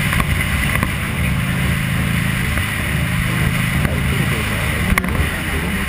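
Buell XB12R's air-cooled V-twin engine running steadily at cruising speed under wind rush.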